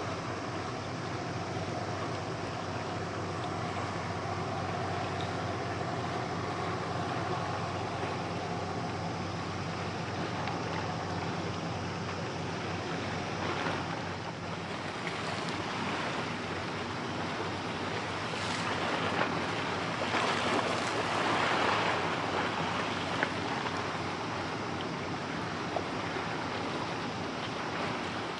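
A small motor boat's engine droning as it runs past, over the splashing of its bow wave and the choppy sea. The splashing swells for a while about two-thirds of the way through.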